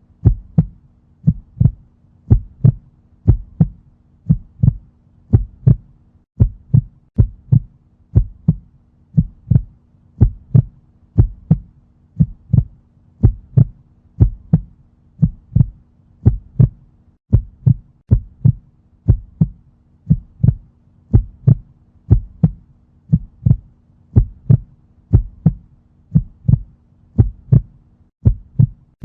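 Heartbeat sound effect: a steady, even rhythm of paired low thumps (lub-dub) over a faint steady hum.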